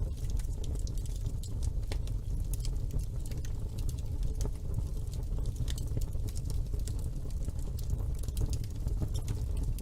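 Wood fire burning in a fireplace: a steady low rumble with frequent small, irregular crackles and pops.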